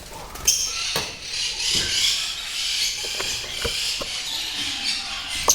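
African lovebirds chattering in a dense, high-pitched background twitter, with several sharp clicks and taps scattered through it.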